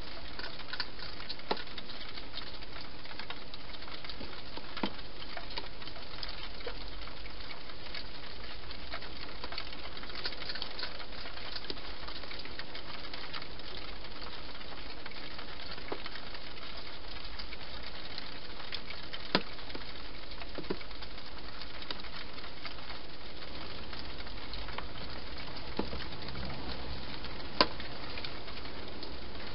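Wild hedgehog eating at a feeding bowl: faint scattered crunching and clicking, with a few sharper clicks, over a steady hiss.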